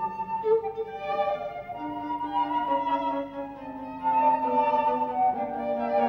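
Flute, violin and cello playing classical chamber music in long held notes, several parts at once. It gets louder about four seconds in.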